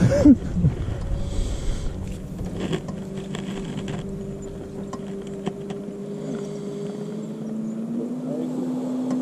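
Low steady hum of a boat's motor, its pitch stepping up a little about eight seconds in, with a few faint clicks over it.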